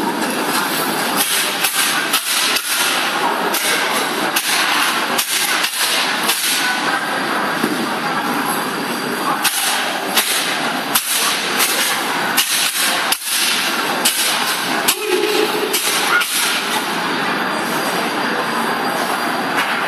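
Wooden staff being swung and struck in a kung fu staff form, heard as frequent sharp knocks and cracks, at times several a second, over a loud, steady hall din.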